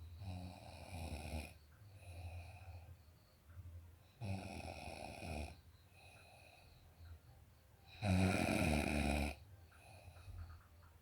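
A sleeper snoring in a slow, regular rhythm: three loud snores about four seconds apart, with quieter breaths between them. The last snore, near the end, is the loudest.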